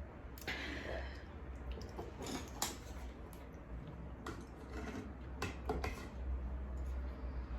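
Close-up eating sounds: scattered sharp clicks of utensils against a dish, with short noisy mouth sounds of eating noodles and fried chicken, over a low steady hum.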